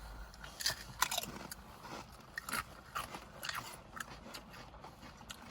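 Crunching and chewing of Pringles crisps in the mouth: a run of short, irregular crunches, several close together in the first couple of seconds, over a low steady hum.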